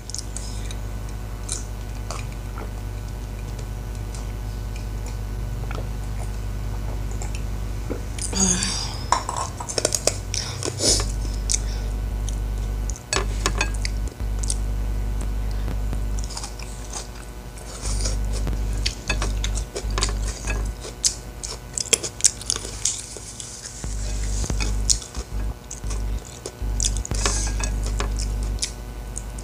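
Close-miked eating sounds: chewing and sharp mouth clicks and smacks as rice, spinach and petai-bean sambal are eaten by hand, with fingers working the food against a ceramic plate. A steady low hum runs underneath.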